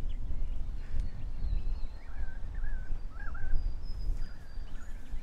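Birds calling in the bush, a few short warbling whistles and thin high notes, over a steady low rumble.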